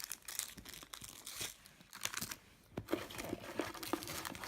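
Packaging crinkling and rustling as items are unwrapped by hand, with many short sharp crackles and what may be a tear.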